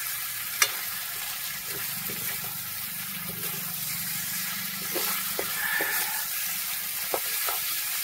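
Chicken and tomatoes sizzling in hot oil in a pan as they fry, with a steady hiss. There is a sharp clink about half a second in, and a few knocks from the stirring spoon against the pan toward the end.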